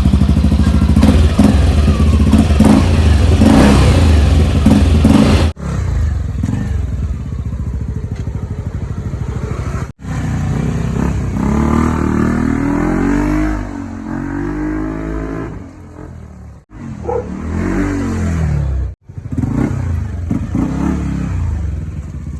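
Yamaha Aerox 155 scooter's stock single-cylinder engine running through a JVT Pipe v3 aftermarket exhaust with its adjustable bolt fully closed, revved repeatedly. The pitch climbs and falls with each throttle blip, and the sound breaks off abruptly a few times.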